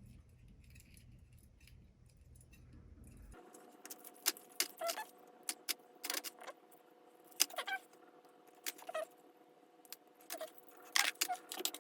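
Metal fishing tackle (dodgers, blades and lures) clinking and rattling as it is handled. A faint low hum comes first, then from a few seconds in a string of sharp clinks, some with short ringing tails.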